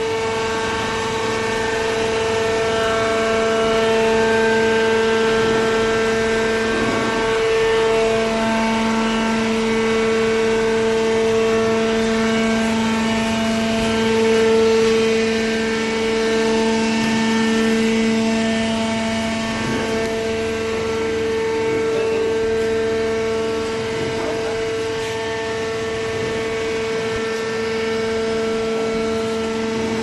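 Horizontal cardboard baler's hydraulic power unit running with a steady, loud whine. A lower hum comes up strongly about eight seconds in.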